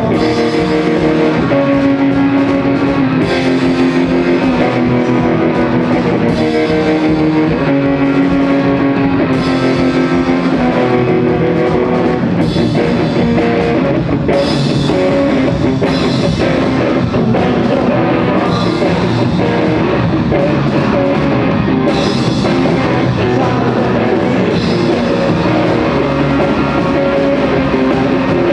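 Rock band playing an instrumental passage live: guitar chords repeating in a steady pattern over a drum kit, with a cymbal crash about every one and a half to two seconds.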